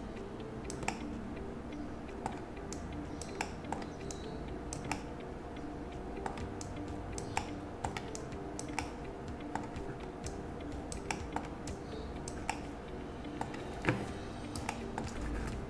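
Scattered sharp clicks of a computer mouse and keyboard being worked, irregular, about one or two a second, over a faint steady low hum.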